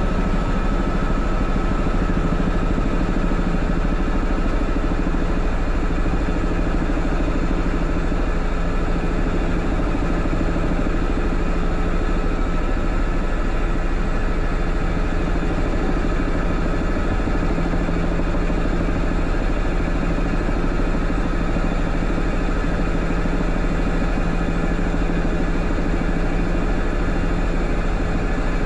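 Helicopter engine and rotors running steadily, heard from inside the cockpit as it air-taxis low over the airfield. A deep drone with a faint steady whine above it.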